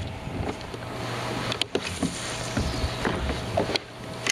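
A hooked bass being fought beside a kayak: a steady rush of water with splashing and a few sharp clicks of rod and reel handling.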